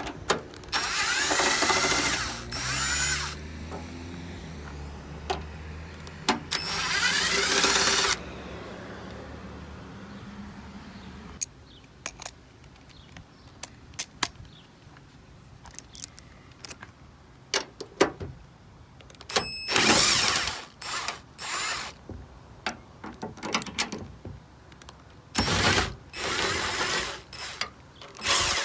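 A power tool with a socket spinning out the fender's top bolts in several bursts of a second or two, its pitch sliding as it speeds up and slows down. Sharp clicks and clanks of metal come in between the bursts.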